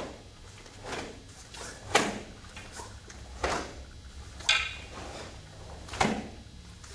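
Bo staff swishing through the air in a series of strikes and sweeps, about five swishes roughly a second apart, the loudest about two seconds in.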